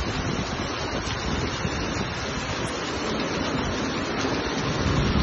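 Heavy rain pouring down with gusty wind buffeting the microphone: a steady dense hiss of rain over an uneven low rumble.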